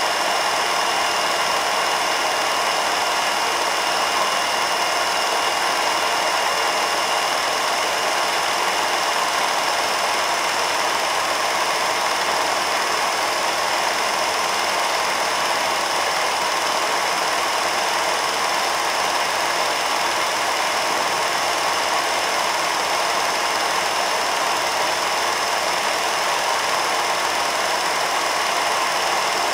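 Film projector running: a steady, unchanging mechanical whir with a constant high tone.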